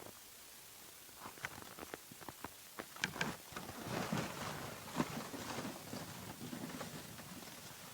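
A person walking: irregular crunching footsteps with rustling and scattered clicks, busiest in the middle.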